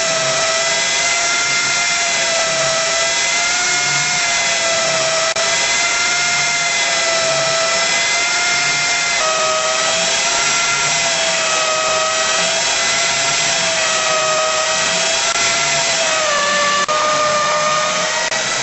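Mirage MM500I portable flange facing machine running: a steady motor whine whose pitch dips and recovers about every two seconds, stepping slightly lower about halfway through and again near the end.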